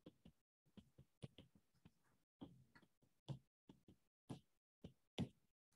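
Faint, irregular taps and clicks of a stylus on a tablet screen during handwriting, about a dozen short ticks with a few slightly louder ones near the end.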